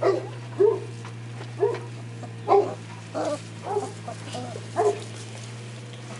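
Young Šarplaninac puppies giving a string of short, high yelps and whimpers, about seven or eight of them, stopping about five seconds in.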